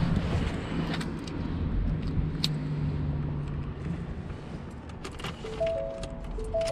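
Clicks and rustles of someone moving about inside a Ford pickup's cab with the door open, over a steady low hum that stops about four seconds in. A few notes of background music come in near the end.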